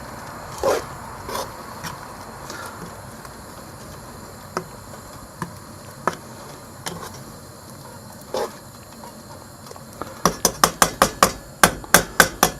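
A metal spoon knocking against a cooking pot as a boiling herbal mixture is stirred: a few scattered single knocks, then from about ten seconds in a fast, even run of sharp taps, about six a second.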